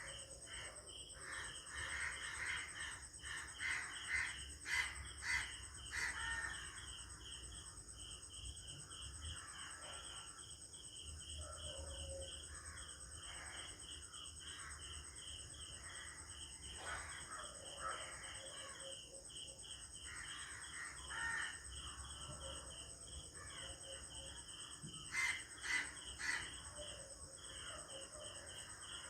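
Village dawn ambience: crows cawing, loudest in a short run a few seconds in and again near the end. Behind them run a steady, evenly pulsing insect chirp and other scattered birdsong.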